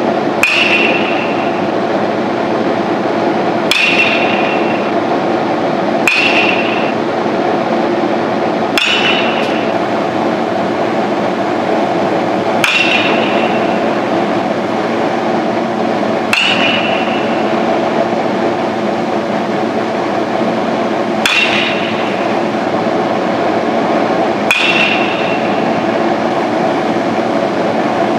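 Baseball bat hitting balls during batting practice: about eight sharp hits every three to four seconds, each with a short ringing ping. A steady hum of the building runs underneath.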